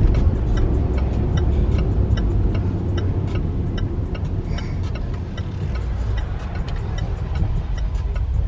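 Steady low road and engine rumble heard inside a moving car, with a light, regular ticking over it.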